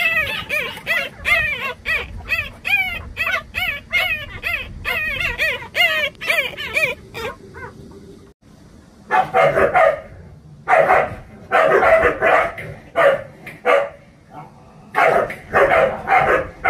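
Newborn Jindo puppy crying for its mother in hunger: a quick run of high, rising-and-falling squeals, about three a second. After a brief lull about seven seconds in, louder, rougher cries come in short bursts.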